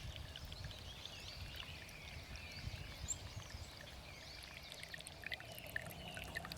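Shallow spring run-off stream trickling and bubbling, a busy, continuous patter of small gurgles and pops.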